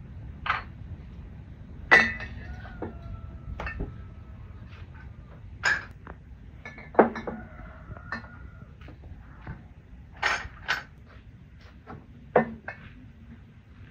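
Empty glass jars clinking and knocking as they are handled, a couple of strikes ringing on briefly, with scattered lighter taps and knocks between.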